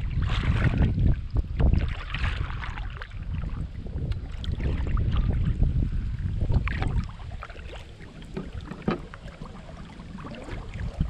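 Wind buffeting the microphone over splashes of paddle strokes and water lapping at a kayak, the wind easing off about seven seconds in.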